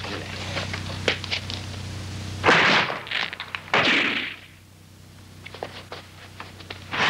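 Action-scene sound effects: light knocks and steps, then two loud, sharp impact sounds about a second apart, and another near the end.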